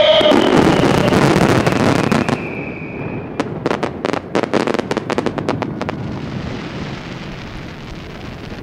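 Aerial fireworks going off in a dense barrage of bursts and crackle, with a high whistle. About three seconds in comes a quick string of a dozen or so sharp cracks, and then the booms die away into a fading rumble.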